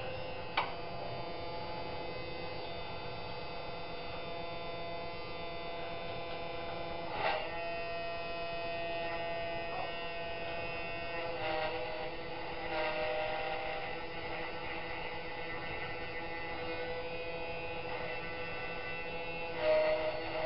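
Small electric engraving spindle on a pantograph running with a steady hum while its cutter engraves letters into a metal plate, with a few sharp clicks and rougher scratching spells as the stylus is traced around the template.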